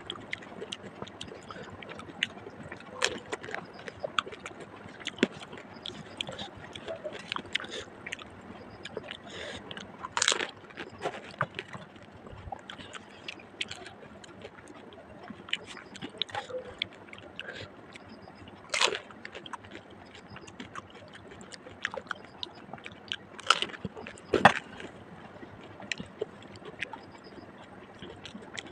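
Mouth-close chewing and crunching of fuchka (pani puri), the crisp shells cracking with wet, sloshing mouth sounds from the tamarind water, as five are eaten in a row. Scattered small crackles, with a few louder crunches about ten, nineteen and twenty-four seconds in.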